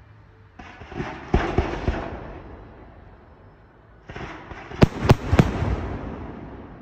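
Display fireworks firing in two volleys, each a noisy rush with several sharp bangs. The second volley comes about three and a half seconds after the first and holds the loudest bangs.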